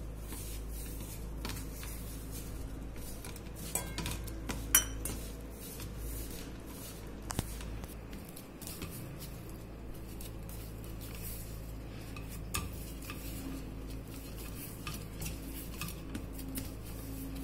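Hands kneading wheat-flour dough in a stainless steel bowl, the bowl clinking and scraping as it is worked, with two sharper knocks about four and five seconds in.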